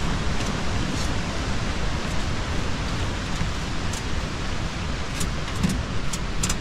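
Storm wind blowing steadily against the tent, with a low rumble and a few faint ticks.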